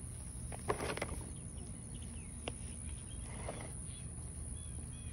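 Quiet outdoor ambience: a steady low rumble and a steady high hiss, with a few brief rustles and clicks about a second in and again around the middle, and faint high chirps near the end.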